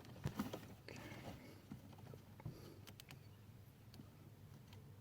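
Faint scattered clicks and light rustling of hands handling wiring and plastic zip ties, about half a dozen small clicks spread through.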